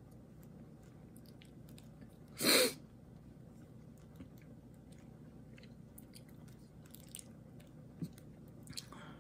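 Faint small clicks of a diamond-painting drill pen picking up resin drills and tapping them onto a coaster, with one short loud puff of noise about two and a half seconds in.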